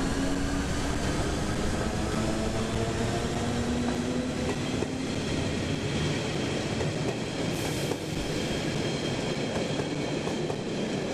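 Narrow-gauge electric trains pulling out together, a red SBB Brünig line train rolling past close by. Its motors whine with a pitch that drifts over a steady rumble of wheels on the track.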